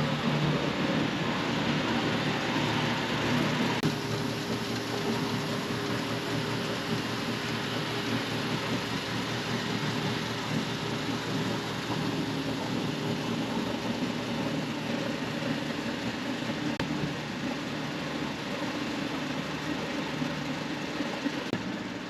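Combine harvester's diesel engine running at a steady speed, an even mechanical drone with a constant hum.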